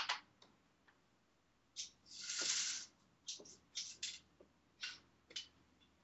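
A window being closed: scattered light clicks and knocks, with a short scraping slide a little over two seconds in.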